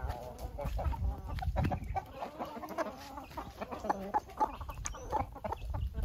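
Aseel chickens clucking, a run of short irregular calls.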